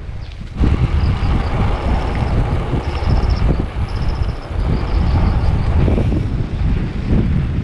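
Wind buffeting the microphone of a camera on a moving bicycle, with road rumble from riding, a heavy uneven rumble that starts suddenly about half a second in. Faint, rapidly pulsed high chirps sound in the background.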